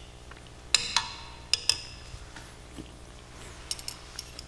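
A metal utensil clinking against a metal cooking pot: a ringing clink about a second in, two lighter ones soon after, then a few faint taps near the end.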